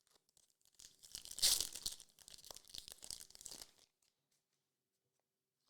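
Crinkly trading-card pack wrapper being torn and handled: a dense crackle lasting about three seconds, loudest about a second and a half in.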